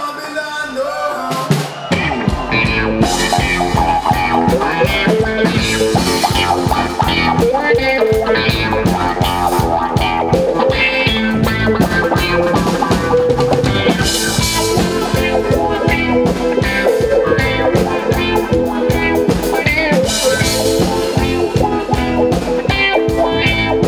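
Live rock band playing on stage, drum kit and guitar, with the full band and a steady drum beat coming in about two seconds in.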